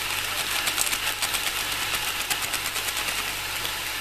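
Chicken, sliced potatoes and tomatoes frying in oil in a large aluminium pot, sizzling steadily with many quick crackling pops.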